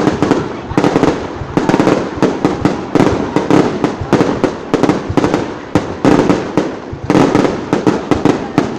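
Aerial fireworks display going off in a dense, rapid string of bangs, many per second, overlapping one another.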